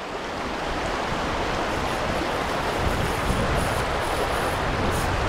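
Shallow river water rushing and splashing over rocks, a steady noisy rush.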